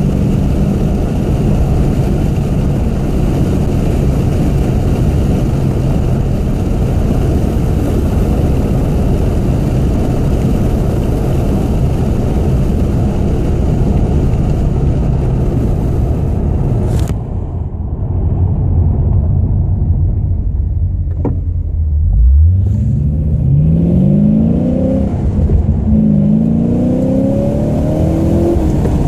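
Holden VE Commodore SS 6.0-litre V8 through a full XForce exhaust: a steady drone while cruising, dipping briefly about two-thirds of the way in, then accelerating hard, with the engine note climbing steeply and dropping back at two gear changes.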